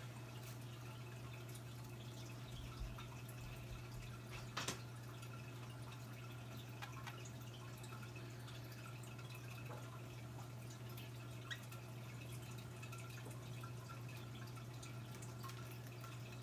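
A steady low hum with faint scattered ticks, and one sharper knock about four and a half seconds in.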